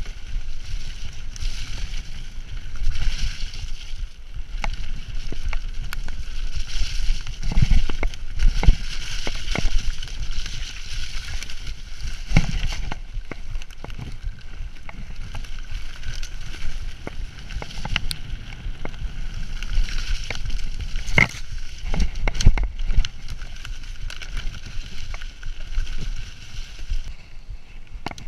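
Mountain bike ridden along a muddy woodland trail: tyres rolling through mud and leaf litter, with a steady rumble of wind on the camera microphone. Frequent sharp knocks and rattles from the bike as it hits bumps, the loudest about 7, 12, 18 and 21 seconds in.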